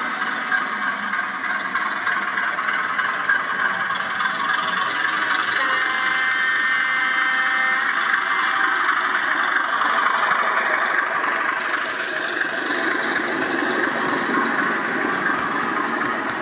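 H0-scale model train, a class 749 'Bardotka' diesel locomotive pulling coaches, running toward the camera and past it with a steady mechanical running sound. A lower rumble of the coaches' wheels comes in during the second half, with small sharp clicks near the end.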